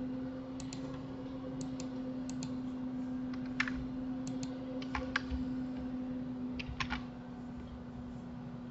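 Computer mouse and keyboard clicks: scattered single clicks, some in quick pairs, as edges are selected and a shortcut is pressed. A steady low hum lies under them.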